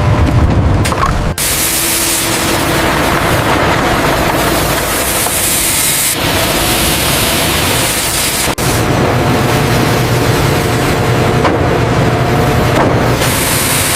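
Loud, steady machinery noise that changes abruptly a few times, as if cutting between different machines.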